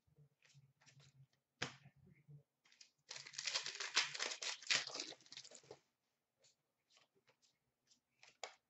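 A Panini Contenders hockey card pack's wrapper torn open and crinkled for nearly three seconds, starting about three seconds in. Before and after it come scattered light clicks of cards being handled.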